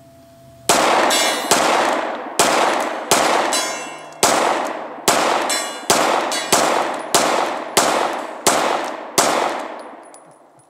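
Glock 19 Gen 4 9mm pistol fired rapidly, about a dozen shots at an even pace of roughly one every 0.7 s, each echoing, with a steel gong clanging from the hits. The ringing dies away after the last shot about nine seconds in.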